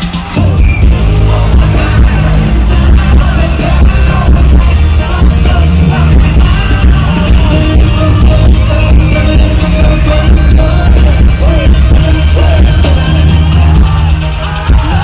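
Live pop song played loud over a concert sound system, with a heavy bass beat and singing.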